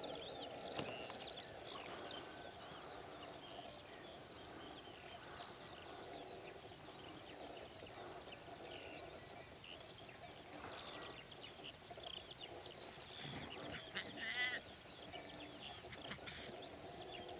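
Wild birds chirping on and off over a steady outdoor hum. About 13 seconds in, chamois chase through the grass, and shortly after comes the loudest sound: one short, pulsed, bleat-like chamois call.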